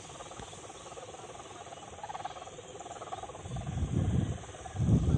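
Gusty wind buffeting the microphone, with two loud low rumbles in the second half, over a steady faint droning hum.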